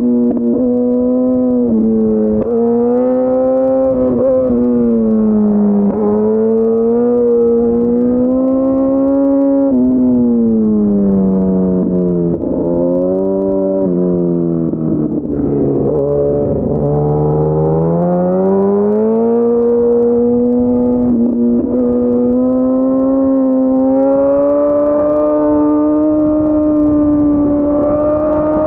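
Yamaha FZ1's inline-four engine under way, its revs rising and falling with throttle and gear changes. It drops to low revs about halfway through, then pulls back up.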